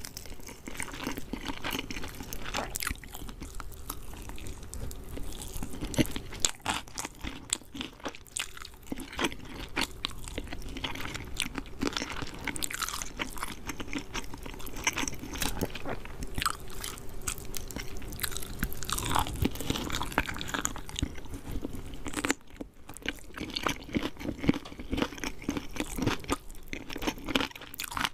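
Close-up eating sounds: a person biting and chewing crispy KFC fried chicken, the breading crunching and crackling in quick, irregular bites, with a brief lull about 22 seconds in.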